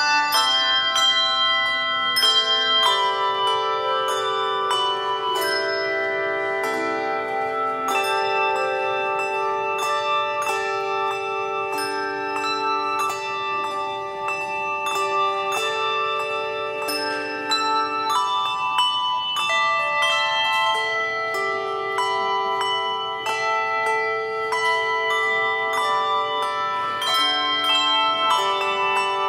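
Handbell choir playing a slow piece: many brass handbells struck and left to ring so their notes overlap, with low bells held for several seconds beneath the higher melody notes.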